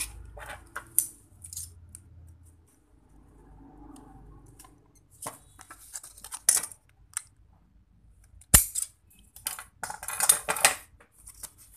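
Small handling noises of a plastic ruler, a utility knife and paper being moved about on a table: scattered clicks and rustles, one sharp knock partway through, and a short stretch of scraping rustle near the end.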